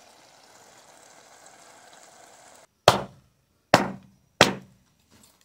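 A faint steady hiss that cuts off suddenly, then three sharp knocks with short ringing decays, a little under a second apart.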